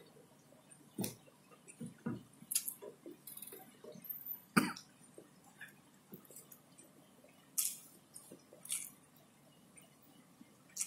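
Eating noises: scattered wet chewing clicks and lip smacks from a person eating fried catfish and rice by hand. A sharper single sound about four and a half seconds in is the loudest.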